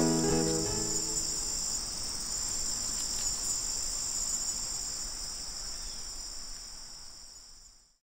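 Steady high-pitched chorus of chirring insects, with the last plucked guitar notes dying away in the first second; the whole gradually fades out near the end.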